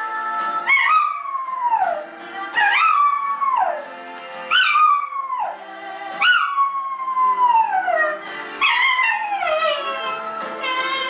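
American Cocker Spaniel howling along to a pop song: five howls about two seconds apart, each jumping up in pitch and then sliding slowly down.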